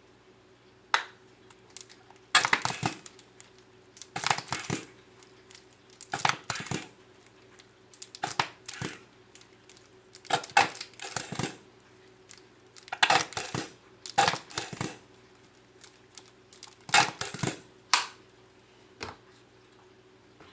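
Plastic squeeze bottle of mayonnaise squeezed again and again over a bowl, about ten short squirts of noise, each under a second, coming every second or two.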